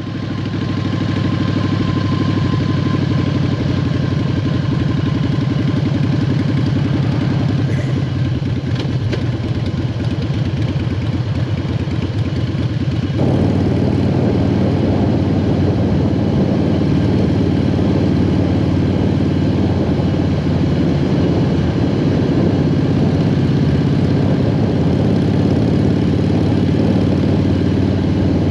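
A 20-year-old Harley-Davidson Softail Standard's V-twin engine running steadily as the motorcycle rides along the road, heard from on the bike. The sound gets a little louder and fuller about halfway through.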